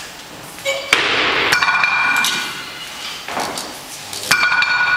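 Iron weight plates clanking against each other, twice, each clank leaving a short metallic ring, with stretches of rushing noise in between.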